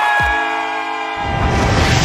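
Cartoon sound effects over a steady low musical drone: a pitched tone that slowly sinks in pitch, then a rumbling noise that starts about a second in and keeps building.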